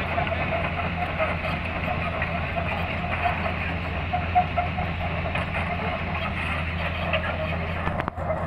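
Komatsu crawler excavator's diesel engine running steadily as it travels on its steel tracks, with the rattle and clank of the track chains.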